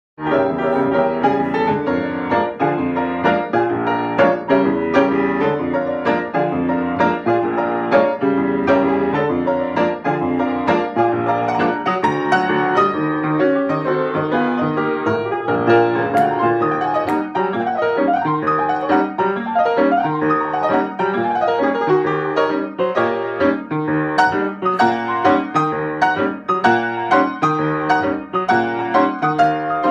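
Solo jazz piano on a grand piano: a continuous, flowing passage of chords and melody, starting abruptly out of silence.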